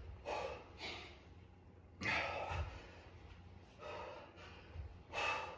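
A man's hard exhales from exertion during alternating V-ups: four short, forceful puffs of breath about every one and a half seconds.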